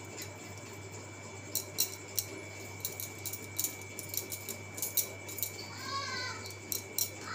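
Steel spoon clicking and scraping against a paper packet and plate as cornflour is spooned out, a string of light, irregular clicks. A cat meows briefly about six seconds in and again right at the end.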